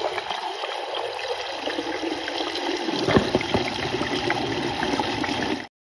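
Water pouring and splashing over gravel in a gem-mining sluice, a steady rushing that grows fuller about halfway through and cuts off suddenly near the end.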